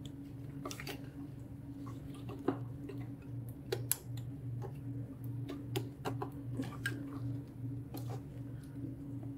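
Irregular small clicks and taps of cable and flex-cable connectors being handled and pushed into place inside an opened electronic equipment chassis, over a steady low hum.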